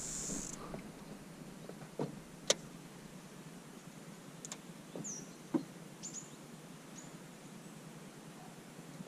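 Quiet riverside ambience. A high insect buzz fades out about half a second in. A few sharp knocks follow, the loudest about two and a half and five and a half seconds in, and several short high bird chirps that glide downward come from about five to seven seconds in.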